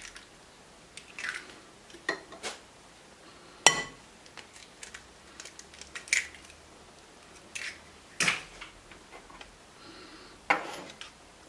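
Eggs being cracked and emptied into a glass bowl: scattered sharp taps and clicks of shell against the glass. The loudest is a clink with a short glassy ring a little under four seconds in, and another knock comes near the end.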